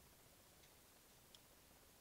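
Near silence: room tone, with two faint ticks, one a little over half a second in and one near the end.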